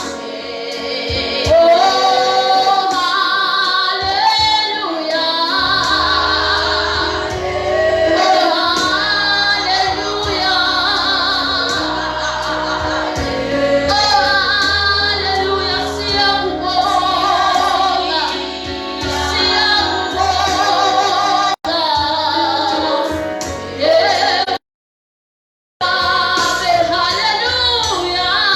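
Worship song with a woman's voice singing over backing music. The sound cuts out completely for about a second near the end.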